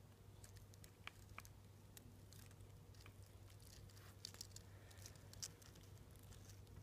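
Near silence: a steady low hum with faint, scattered little clicks and ticks.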